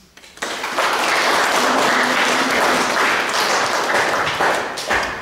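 Audience applauding at the end of a poem reading. The applause starts about half a second in and dies away near the end.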